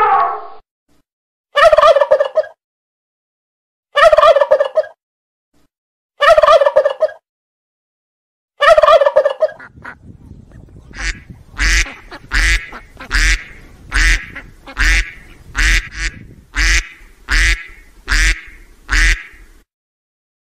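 Domestic fowl calling: four separate drawn-out calls, then a quick run of about a dozen shorter calls.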